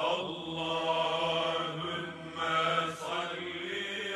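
Devotional chanting by a male voice in long, slowly gliding held tones.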